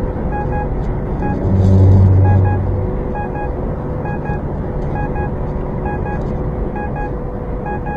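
Semi-truck cab at highway speed, with steady engine and road noise. Short electronic alert beeps repeat throughout. A low drone swells about a second and a half in and fades about a second later.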